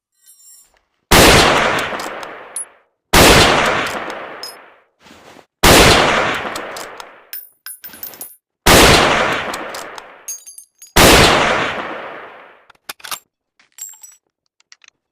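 M39 Mosin-Nagant bolt-action rifle in 7.62×54mmR firing five single shots about two to three seconds apart, each shot ringing out in an echoing tail that dies away over about a second and a half, with faint clicks between shots.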